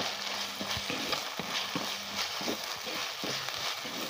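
Wooden spatula stirring frying onions and tomatoes in an earthenware pot, knocking and scraping against the pot's sides in irregular strokes over a steady sizzle of hot oil.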